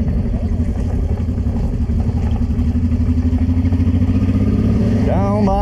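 Old Honda Transalp V-twin motorcycle running while riding on a cobblestone road, its engine mixed with the rumble of tyres over the cobbles.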